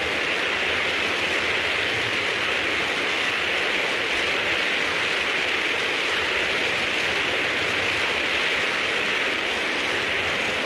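G-scale LGB model tank cars rolling past on the track: a steady, even hiss of wheels running on the rails.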